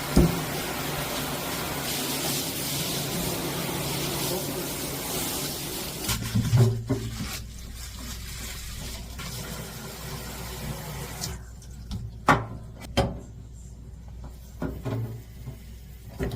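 Water running steadily from a sink faucet for about six seconds, then cutting off, followed by a few short knocks and clunks.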